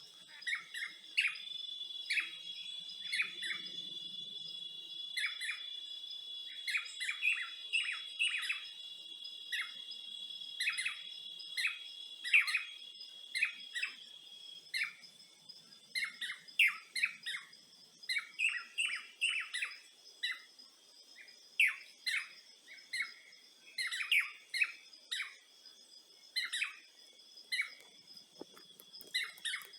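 Birds chirping in many short, quick calls over a steady, high-pitched drone of insects; one of the insect tones stops about halfway through.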